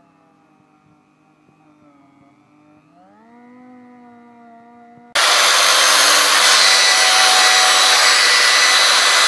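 Handheld rotary tool porting a Sea-Doo Rotax 4-tec exhaust manifold: a faint motor whine whose pitch sags under load, then climbs again about three seconds in. About five seconds in, a much louder, steady grinding rush with a high whine in it starts suddenly.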